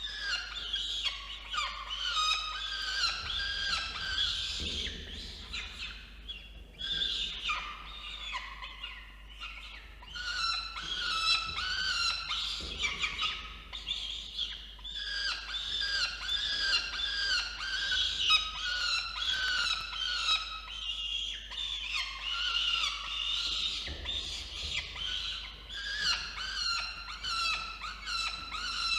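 Peregrine falcon chicks giving rapid, high-pitched begging calls almost without a break, with a few short lulls, while being fed.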